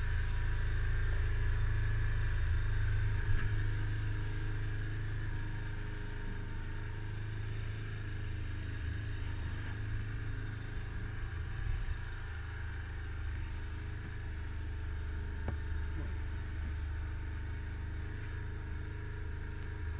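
Small motorcycle engine running steadily at low revs, a constant low hum, picked up muffled through an action camera's built-in microphone.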